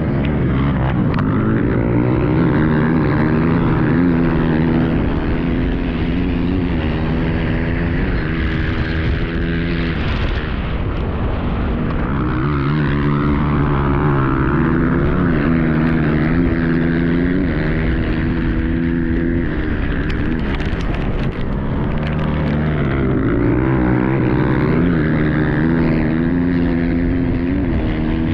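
Onboard sound of a Stark Varg electric motocross bike racing flat out on wet beach sand: a running whine from the motor and drivetrain that rises and falls with speed, easing off about ten seconds in and building again, under steady wind rush.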